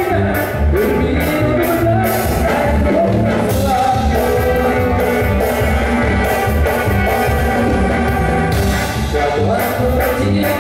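Live Latin American band music played over a PA: keyboards, congas, drum kit and electric guitar over a steady beat, with a voice singing over it.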